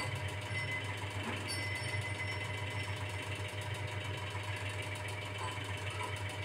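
A small motor running with a steady low hum.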